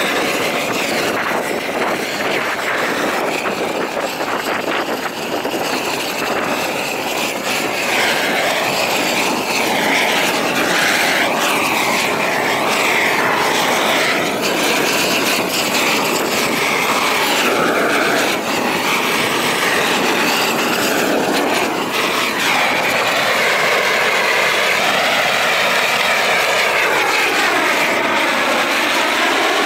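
Gas roofing torch burning with a steady roar as it heats torch-on bitumen roofing membrane, its tone wavering slowly as it moves.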